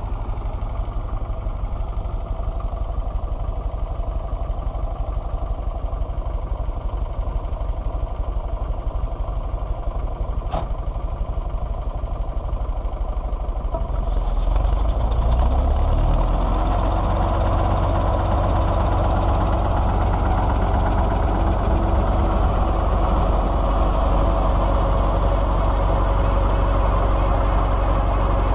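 Fordson Power Major four-cylinder diesel tractor engine running steadily at low speed, then about halfway through it speeds up and settles into a louder, steady higher-speed run as it is brought up to drive the PTO-powered rack sawmill.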